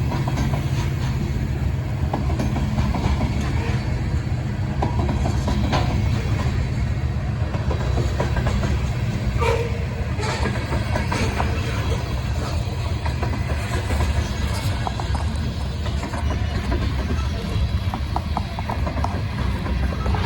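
Freight train of covered grain hopper cars rolling past: a steady rumble of wheels on the rails with scattered sharper clicks.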